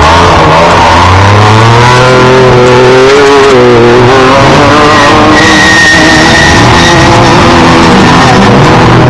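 Off-road race truck engines revving loudly, their pitch rising and falling, with a steady high tone lasting about a second and a half midway.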